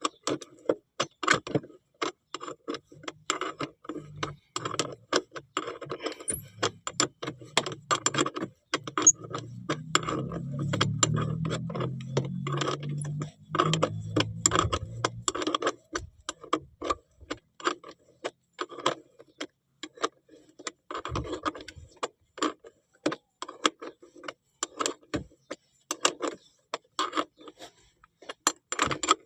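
Ratchet wrench clicking as a bolt is tightened, a run of sharp, uneven clicks about two a second with brief pauses. A low hum runs beneath the clicks through the first half.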